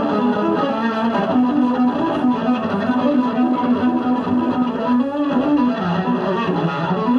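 Electric bass guitar solo played live and amplified: quick runs of notes, with a brief dip a little after five seconds.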